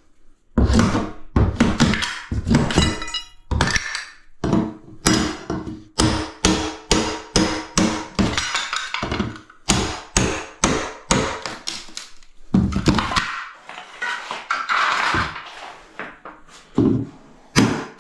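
Repeated hard knocks, roughly two a second, of a tool striking tile skirting to knock it off the wall, with a rougher stretch of scraping and crumbling about thirteen seconds in.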